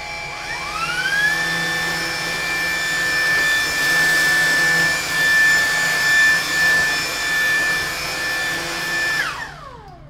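Lupe Pure cordless stick vacuum running on high with its brush roller on, sucking up debris. It gives a steady high-pitched motor whine that climbs as the motor spins up over the first second. The whine then falls away when it is switched off about nine seconds in.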